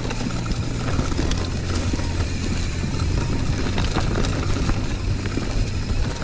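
Mountain bike rolling down a rocky, leaf-strewn trail, heard through wind rumble on an action camera's microphone, with tyre noise and scattered clicks and rattles from the bike over the rocks.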